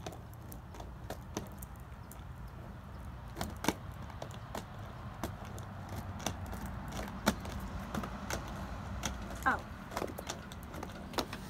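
Quad roller skate wheels rolling on a rough concrete sidewalk: a low steady rumble with scattered clicks and knocks.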